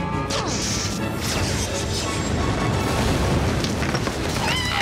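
Animated-cartoon sound effects over background music: a dense booming, crashing rumble, with a character's cry starting near the end.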